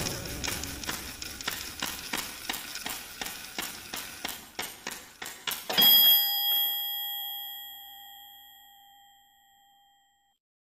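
Clock ticking, about three ticks a second, then a single bright bell chime about six seconds in that rings on and slowly fades away.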